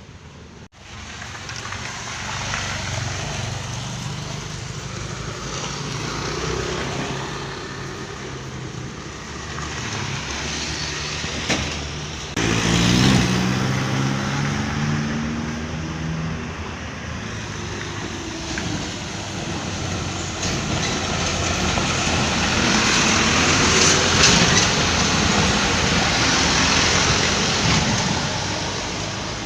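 A large vehicle engine, a bus, running under road and traffic noise. About 12 seconds in the sound jumps suddenly louder, with a low engine note that climbs slightly and holds for a few seconds, then it swells again later on.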